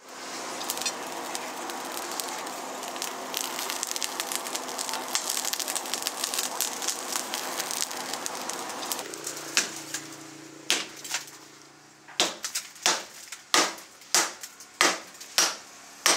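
Coal forge fire crackling and spitting sparks, then, after a short lull, a hammer striking red-hot leaf-spring steel on an anvil in a steady run of sharp blows, somewhat under two a second, toward the end.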